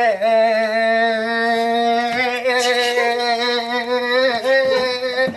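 A man holding one long sung vowel at a steady pitch, sustaining it for as long as he can in a timed contest. His voice wavers a little near the end.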